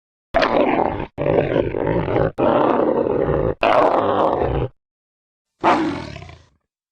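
Designed Dimetrodon roar sound effects: a long rough roar of about four seconds made of several pieces cut off abruptly, then a second, shorter roar near the end that fades away.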